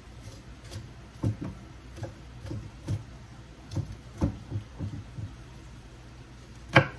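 Kitchen knife chopping green vegetables on a wooden cutting board: irregular knocks of the blade on the wood, about a dozen, with the loudest just before the end.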